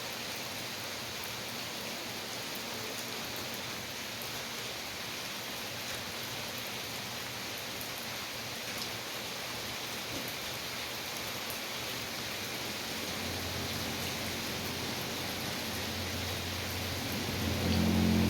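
Steady rain falling, an even hiss of drops. About two thirds of the way through, a low steady hum comes in beneath it and grows louder near the end.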